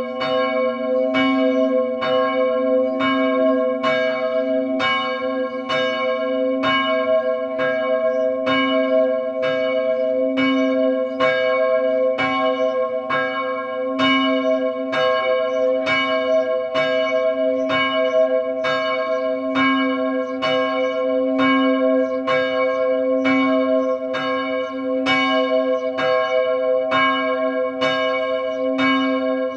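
A church bell struck over and over at an even pace, about once a second, each strike ringing on into the next.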